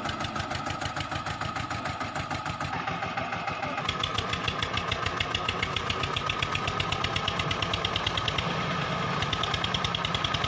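Tractor diesel engine running with a rapid, even knock, growing a little louder about four seconds in.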